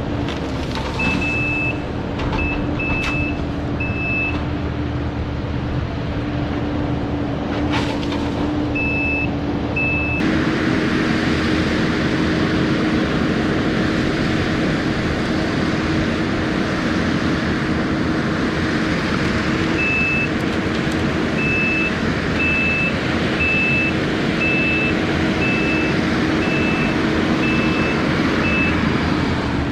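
Diesel engine of a piece of land-clearing machinery (skid steer or excavator) running steadily, its note stepping up about ten seconds in as it is worked harder. Over it, a reversing alarm beeps in short runs of evenly spaced high beeps, the longest run near the end.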